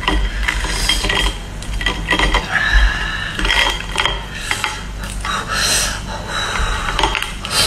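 Hands pulling apart and cracking the shell of a cooked Boston lobster: a busy run of crackling, clicking and scraping as shell pieces snap and knock against the plate.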